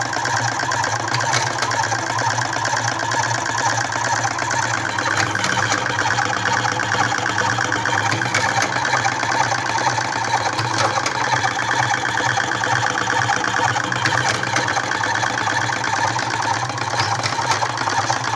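Silim 12-volt electric hopper-fed cigarette-rolling machine running steadily, its motor and tube-filling mechanism whirring without a break as it fills tubes with tobacco.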